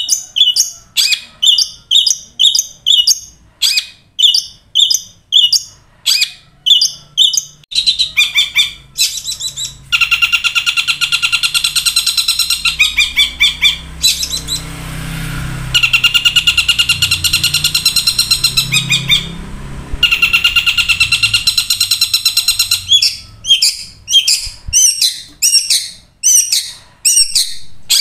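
Long-tailed shrike (cendet) calling loudly: sharp repeated notes about twice a second, changing about 8 seconds in to a long, fast chattering trill with a low rumble underneath, then back to the repeated sharp notes near the end.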